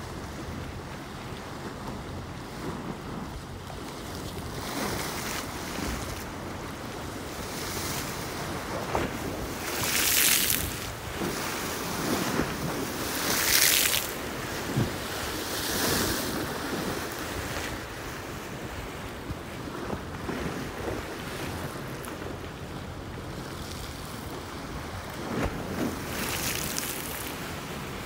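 Lake Erie waves washing against a concrete seawall, with a steady wash of water broken by several louder splashes as bigger waves hit the wall. Wind buffets the microphone with a low rumble underneath.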